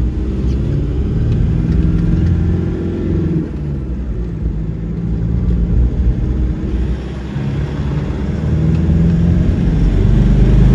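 Toyota 1KD-FTV 3.0-litre four-cylinder turbodiesel accelerating on the road, heard from inside the Hilux cab. The revs rise, fall away about three and a half seconds in, then climb again and grow louder near the end.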